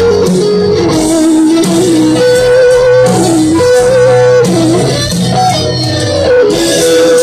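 Live rock band with a lead electric guitar from a gold-top Les Paul playing a melodic solo line of long held, bending notes over bass, drums and keyboards, recorded from the crowd in a large stadium.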